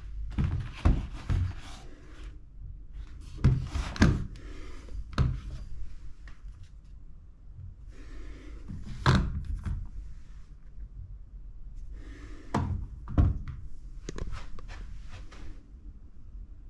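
Dull knocks and clicks from handling things at a wall-mounted bedside panel, including a plastic remote control pulled from its pocket. They come in about five short clusters over a low steady hum.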